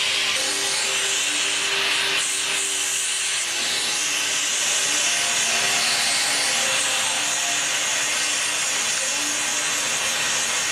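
Gas torch flame hissing steadily as it melts silver in a crucible.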